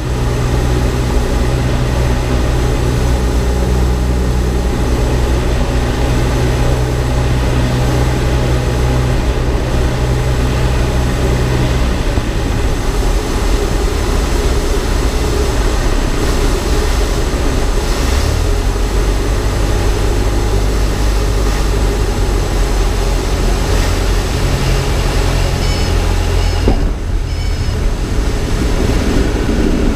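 Cessna 172's piston engine and propeller heard from inside the cabin during final approach and landing: a steady drone whose pitch drops about twelve seconds in and shifts again around eighteen seconds, with a brief dip near the end.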